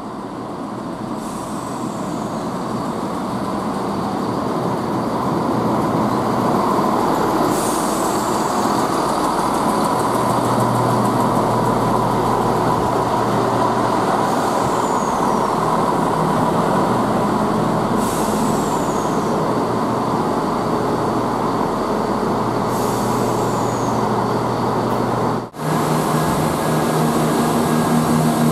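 Chiltern Railways diesel multiple unit running into the station past the platform: underfloor diesel engines and wheels on rail growing louder over the first few seconds, then steady, with a few brief high squeals. After a short break near the end, a closer diesel engine hums steadily at idle.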